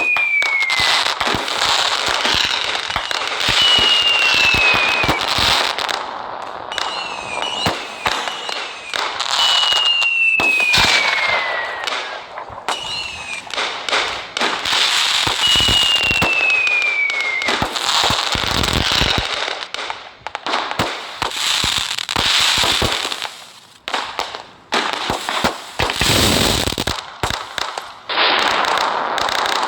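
Diwali fireworks and firecrackers going off: continuous crackling and popping, with a falling whistle about every three seconds through the first half.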